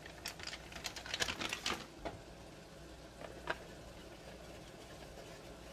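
Wire whisk stirring shredded cheddar into thick grits in a nonstick pot: a quick run of light clicks and scrapes against the pot in the first two seconds, then a few single taps and quieter stirring.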